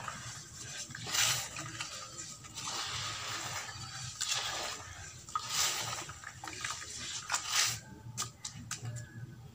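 Hands squeezing and churning wet sand paste in a bowl of water: squelching and sloshing in irregular surges, with a few short clicks near the end.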